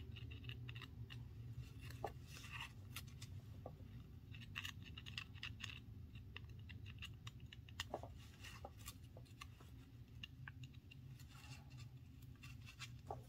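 Faint, scattered clicks and scratches of fine metal tweezers picking at a small eyeglass-frame hinge, cleaning metal chips out of the freshly tapped screw hole, over a low steady hum.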